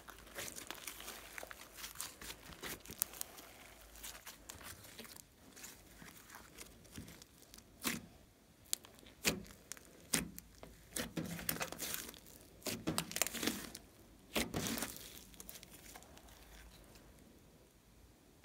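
Hands kneading and pressing a large lump of glossy slime: irregular sticky crackles and pops in bursts, thinning out near the end.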